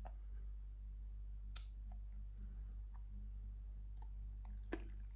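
A new iPhone 13 Pro Max being handled in its plastic wrap: faint light ticks of fingers on the phone, two sharp clicks about a second and a half in and near the end, then a brief crinkle of the plastic film near the end.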